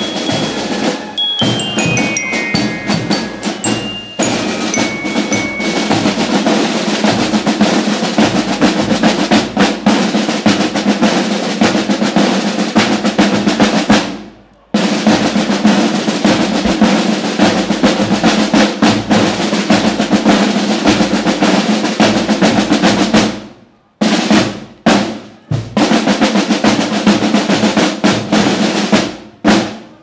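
Marching band's bell lyre plays a short descending run of bright notes over snare drums in the first few seconds. Then the marching snare drums play a cadence with rolls, breaking off briefly about halfway and again near the end.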